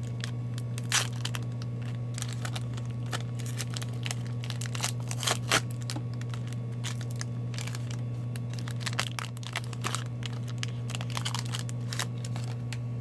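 Foil wrapper of a hockey card pack crinkling and tearing as it is ripped open and the cards are slid out: scattered crackles, with a few sharper ones about a second in and again around five seconds in. A steady low hum runs underneath.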